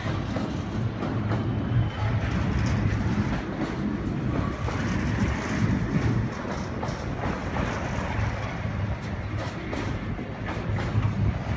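Container wagons of a freight train rolling past close by: a steady rumble of steel wheels on the rails, with scattered clicks as the wheels run over the track.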